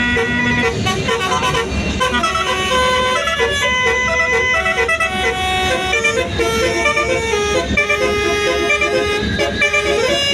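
Indonesian 'telolet' multi-tone bus air horn playing a melody of stepped, held notes, sounding continuously and loud.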